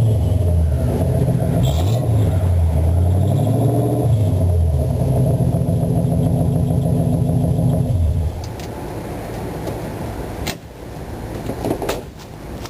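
305 small-block Chevy V8 running through a Flowmaster 10 single-chamber muffler with exhaust dumps and no catalytic converter. It is blipped and revved a few times, then runs steadier at lower revs and stops abruptly about eight seconds in. A couple of sharp clicks come near the end.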